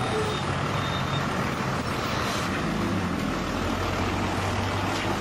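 Bus engine idling steadily, a low even hum.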